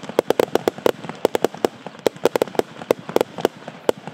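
Six Vogelschreck salute batteries (F2 bird-scarer cakes) firing together: a rapid, irregular volley of sharp bangs, several a second, thinning out near the end.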